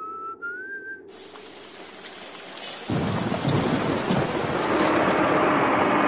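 A person whistling a tune stops about a second in. A steady rushing noise follows and grows much louder and deeper about three seconds in.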